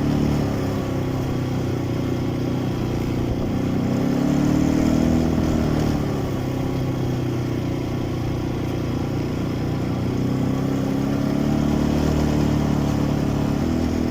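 Quad bike (ATV) engine running while riding. Its pitch rises and falls twice, once about four seconds in and again near the end, as the throttle changes.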